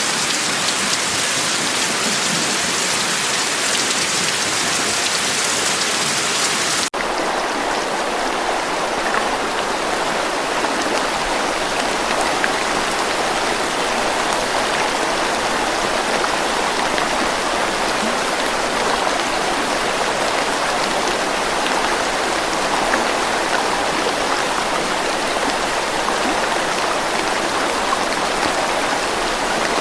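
Steady rain. About seven seconds in it cuts abruptly to a different rain recording, with less high hiss and a denser, mid-pitched patter.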